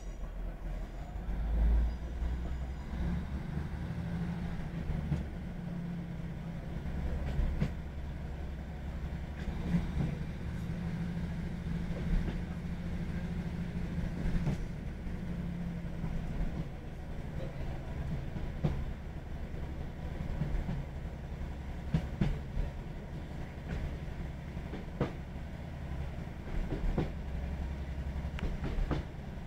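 Cabin sound of a Class 156 diesel multiple unit on the move: a steady low rumble from the engine and wheels on the track, with scattered sharp clicks of the wheels over rail joints. A faint high wheel squeal dies away in the first few seconds.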